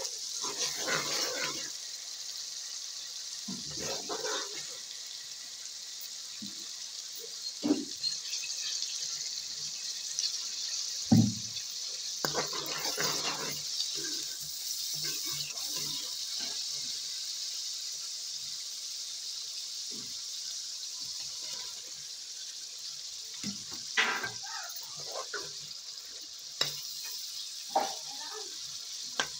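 Onion-tomato masala frying in hot oil in a metal kadai: a steady sizzle, with now and then a spatula scraping and knocking against the pan as it is stirred, the loudest knock about a third of the way through.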